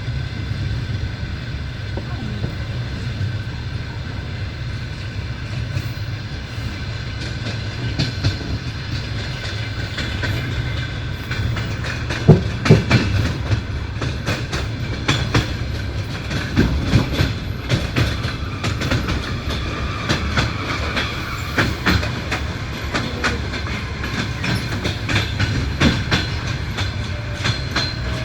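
Passenger train's wheels clattering over rail joints and switches, heard from the carriage window over a steady low rumble. The clacks come thicker and louder from about eight seconds in.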